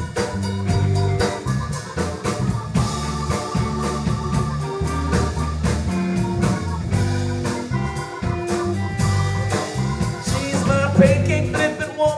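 Live band playing an instrumental break: drum kit keeping a steady beat under bass, keyboard, electric guitar and hand percussion.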